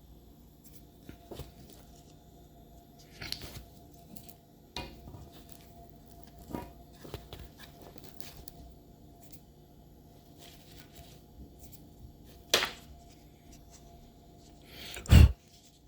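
Scattered small clicks and rustles of Roomba parts being handled and cleared of debris, with a sharp knock about twelve seconds in and a louder thump near the end.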